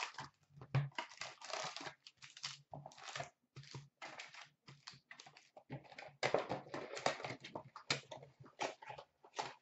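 Foil-wrapped hockey card packs crinkling and rustling as they are pulled out of a cardboard hobby box by hand and stacked, in short irregular bursts.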